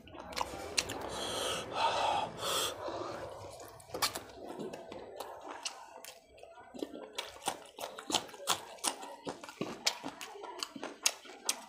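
Close-miked eating of curry and roti: wet slurping and sucking over the first few seconds, then a run of quick, sharp chewing and lip-smacking clicks.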